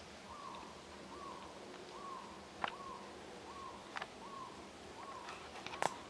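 An animal calling a steady series of short, identical notes, about one every second, with three sharp clicks in between.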